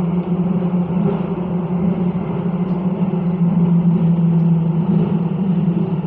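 Copenhagen Metro train running through a tunnel, heard from inside the carriage: a steady rumble with a strong, unbroken low hum.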